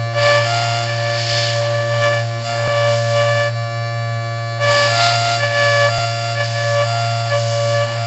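3D-printed mini Thunderbolt tornado siren running its dual-tone chopper, giving a steady drone of several fixed tones over a motor hum. Two long breaths of air are blown onto the stator, a hiss during which the tones swell. It is weak because the siren has no blower and the chopper vanes were made incorrectly.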